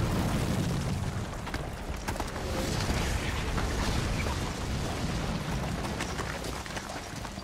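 Rumble and clatter of a rock-face blast, its heavy noise slowly fading while many stones and chunks of rock crack and rattle as they fall.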